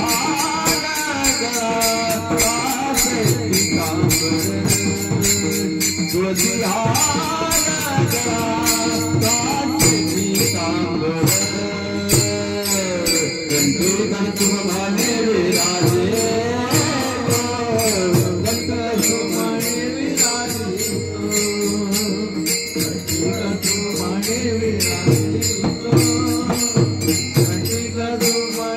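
Varkari bhajan music: a voice sings long, sliding melodic lines without clear words over a steady, fast jingling beat of small hand cymbals (taal).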